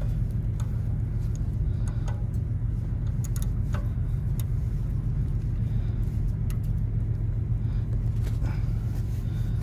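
A 5/8 socket clicking against the clutch adjusting bolt inside a semi-truck's clutch housing, in scattered small metal clicks. Under it is a steady low rumble.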